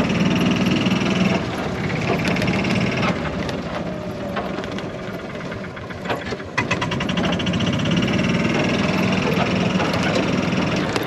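Vehicle engine running while riding over a rough, bumpy field, with the body rattling and clattering and a sharper jolt about two-thirds of the way through.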